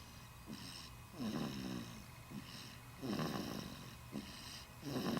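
A four-week-old baby snoring in sleep: three low, rattly snoring breaths about two seconds apart, with a soft high hiss between them.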